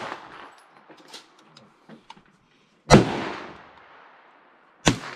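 Two gunshots about two seconds apart. The first rings on and fades slowly, and a few faint clicks come before it.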